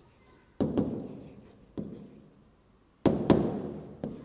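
Pen knocking against the glass screen of an interactive whiteboard while a word is written: about six sharp knocks, irregular and loosely paired, each ringing out briefly.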